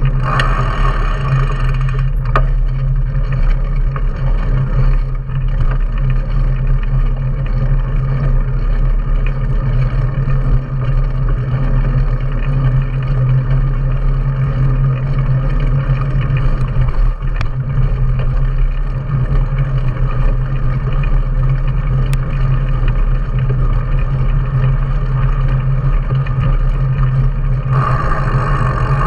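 Steady loud rumble of wind and road noise on a bike-mounted action camera as a mountain bike rolls along an asphalt road on knobby tyres.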